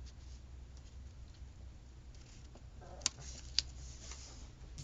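Two quick snips of small scissors cutting a paper sticker, about half a second apart, over a faint low hum.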